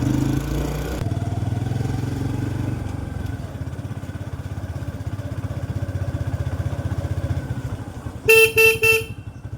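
Motorcycle engine running on the move, with a steady pulsing hum. Near the end a vehicle horn beeps three quick times.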